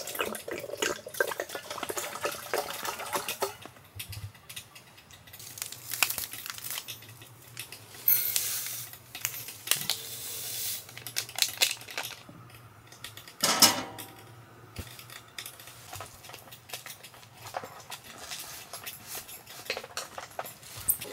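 Water running from a dispenser tap into a small metal kettle for the first few seconds, then camp-kitchen handling: instant-coffee powder poured from a stick into a steel mug, clinks of cookware and utensils, and one sharp knock about two-thirds of the way through. A faint steady low hum runs underneath.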